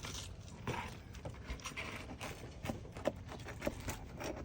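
Roofing pry bar working under a shingle to pull a nail: irregular knocks and scrapes of the metal bar against the shingles.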